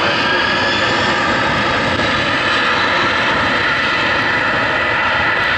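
Boeing 747's four turbofan engines running as the jet rolls along the runway: a loud, steady jet noise with a high whine held over it.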